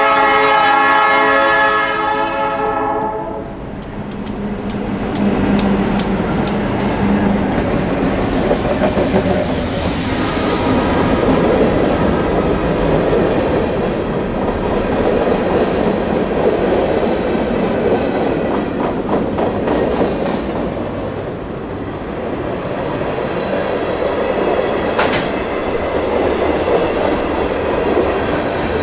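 Freight train's diesel locomotive horn sounding for a grade crossing and cutting off about three seconds in, then the train passing: the EJE 656 lead locomotive goes by and a long string of covered hoppers and tank cars rolls past with a steady wheel rumble and rail-joint clicking.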